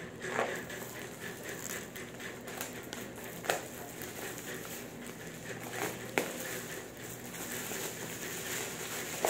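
Plastic parcel wrapping rustling and crinkling as it is handled and opened, with a few sharper crackles, over a steady low hum.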